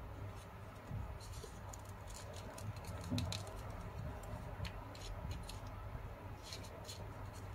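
Origami paper rustling and crinkling as it is handled and its flaps are tucked together by hand: a scatter of soft, crisp scratches and clicks over a low steady hum.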